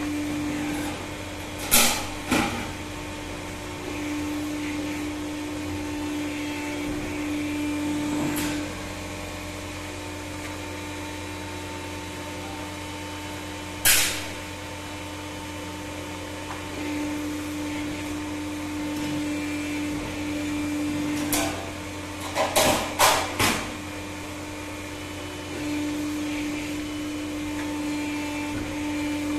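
A CNC press brake running with a steady hum. The hum grows louder for a few seconds at a time, four times, as it bends aluminium sheet into a door-frame profile. Sharp clanks come now and then, with a quick run of four about three quarters of the way through.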